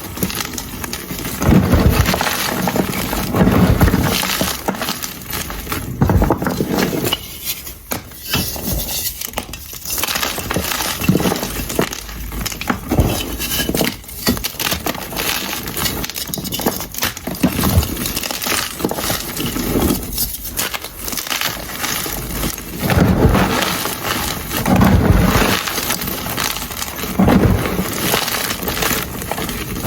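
Blocks of gym chalk being crushed and broken apart, a dense run of crisp crackles with heavier crunches every few seconds.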